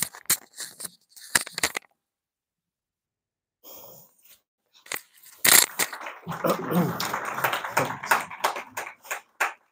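Handling noise of a microphone being adjusted on its stand, heard through that same microphone: scattered knocks and clicks, then after a gap of dead silence a longer run of bumps and rubbing near the end, with faint murmured voices mixed in.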